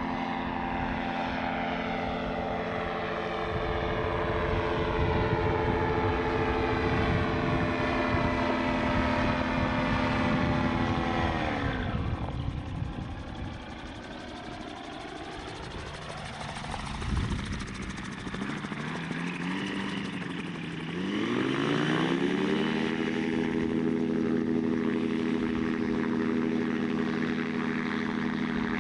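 A gyrocopter's engine and pusher propeller run steadily at high power. About twelve seconds in, the pitch drops sharply and the sound gets quieter. Around twenty seconds in it climbs back up and holds steady.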